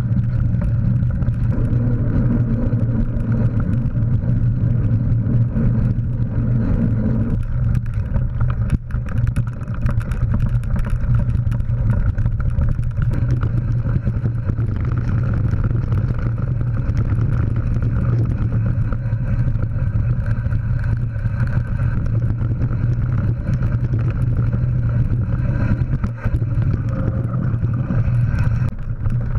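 Mountain bike riding over dirt forest trail, heard through a GoPro Hero3 Black's housing: a steady low rumble of wind and tyres with constant small rattles from the bumps, and a sharper knock about nine seconds in.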